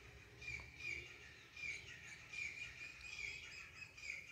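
Faint, repeated short chirps from a bird, about two a second.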